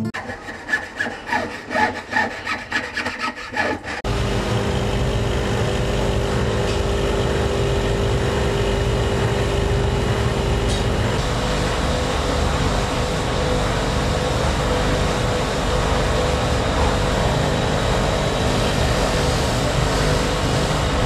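Quick light hammer taps on a chasing punch against a silver sheet for about four seconds. Then a power tool starts abruptly and runs with a steady grinding rasp and hum as metal is held against it.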